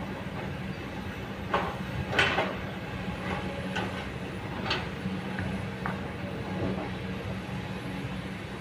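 Kobelco hydraulic excavator's diesel engine running steadily under load, with a handful of sharp knocks and scrapes as the bucket digs into stony soil, the loudest about two seconds in.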